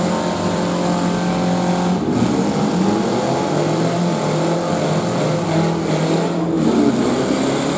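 Demolition derby car engines running and revving in the arena, several engines at once, loud and steady with the pitch rising and falling.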